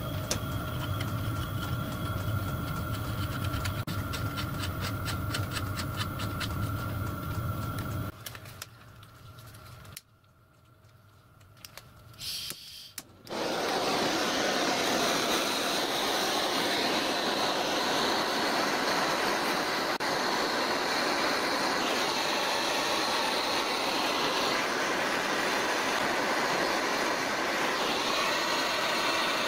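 A cordless drill runs steadily for about eight seconds, driving the mini lathe's mechanism. After a short lull, a gas blowtorch hisses steadily from about thirteen seconds in, heating small steel knobs red-hot for blackening in old engine oil.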